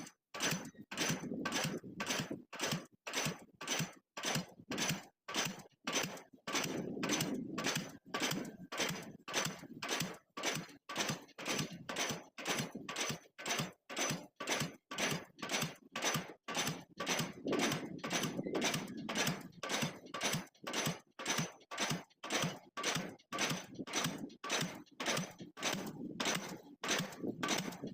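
Diesel pile hammer striking a pile in a steady rhythm, about three sharp blows every two seconds.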